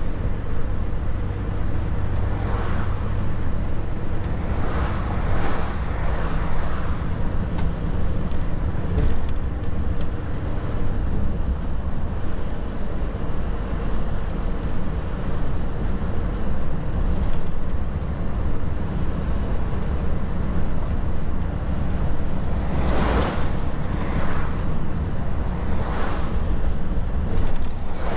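Volvo FH 460 truck's 13-litre six-cylinder diesel and tyres running at steady road speed, a constant low rumble. Several other vehicles whoosh past: three in the first several seconds and four more near the end.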